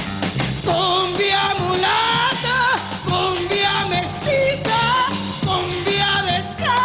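A woman singing live into a handheld microphone, backed by a band with drums and guitar; her held notes waver with vibrato over a steady bass line.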